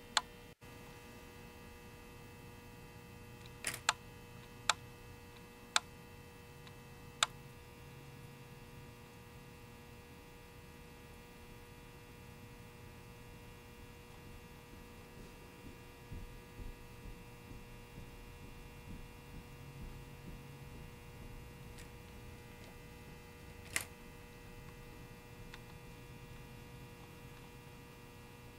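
Steady electrical hum with several even tones. A few sharp clicks come about four to seven seconds in, and one more comes later.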